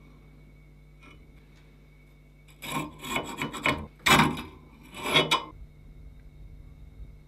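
The rusty sliding jaw of a 1930s Adriance adjustable wrench is dragged along its rust-coated bar and off the end, metal scraping on metal in three rough strokes, the middle one loudest.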